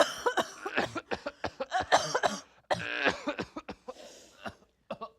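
A young man coughing from a cold, a long fit of many short hacking coughs mixed with throat clearing, breaking off about four and a half seconds in before one more cough near the end.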